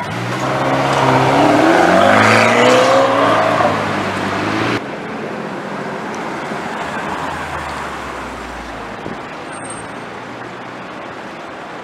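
Ferrari California's V8 accelerating away, its pitch rising, cut off suddenly about five seconds in. Then a Ford Mustang Shelby GT350's V8 running low and steady as it drives slowly past, fading near the end.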